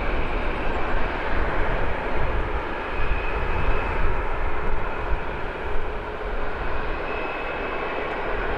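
Jet airliner engines running, a steady loud rush with a faint high turbine whine.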